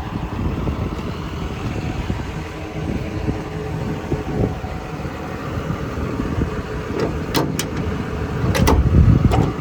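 John Deere 210G LC excavator's diesel engine idling steadily. A few sharp clicks and a clunk come near the end.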